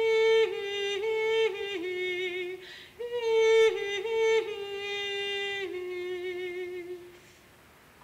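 A solo high voice singing unaccompanied, a melody of held notes stepping up and down, with a quick breath between two phrases and a wavering at the ends of phrases; the singing fades out about seven seconds in.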